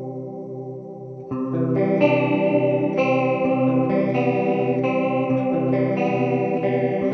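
Electric guitar played through a U-Sound Antarctic Chorus II chorus pedal, with a wavering chorus shimmer on the notes. A held chord fades, then fresh chords are struck from about a second in, roughly one a second.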